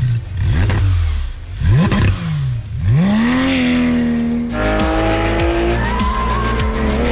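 Porsche 911 GT3 RS's 4.0-litre flat-six being revved in quick blips that rise and fall back, then a rev held high. About halfway through, the sound changes to a continuous engine note that climbs steadily as the car accelerates.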